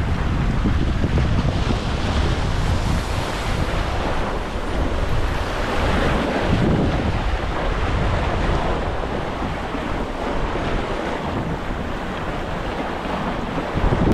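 Sea surf washing in steadily, with strong wind buffeting the microphone.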